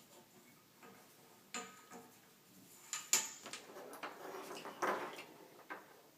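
A short strap with a cinch buckle being handled and threaded: scattered clicks and light knocks from the buckle, the sharpest about three seconds in, and rustling as the strap is pulled through around four to five seconds in.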